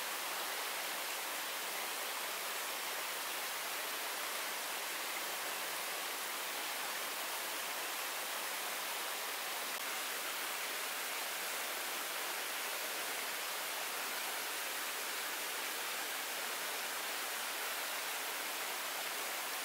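Shallow stream water running over a rock bed: a steady, even hiss that does not change.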